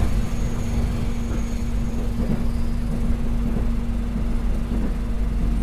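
Steady low rumble of an electric airport train running, heard inside the passenger carriage, with a steady hum under it.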